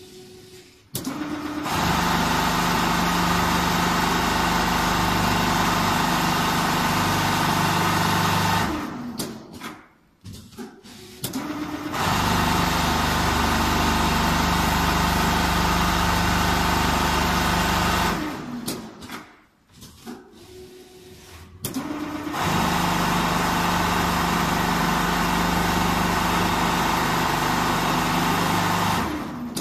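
Richpeace four-head CNC pattern sewing machine stitching quilting lines through fiber-filled jacket panels: three steady, even runs of about six seconds each. The first starts about two seconds in, and the machine pauses for a few seconds near nine and near nineteen seconds in.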